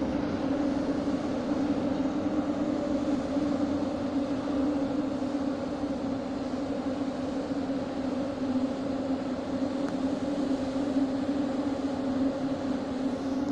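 A steady low mechanical hum over an even rushing noise.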